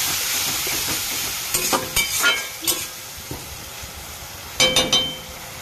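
Spice paste sizzling in hot oil in a metal kadai just after a splash of water, the hiss fading over the first second or so as the masala cooks down. A metal spatula scrapes and clinks against the pan, in a run of strokes about two seconds in and another near the end.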